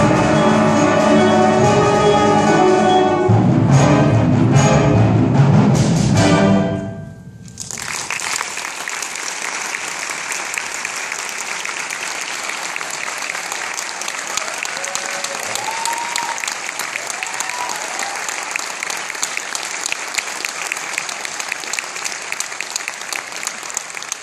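A middle school concert band plays the final chords of a piece, with heavy brass and percussion hits, and cuts off about seven seconds in. Audience applause follows at once and continues steadily, thinning out near the end.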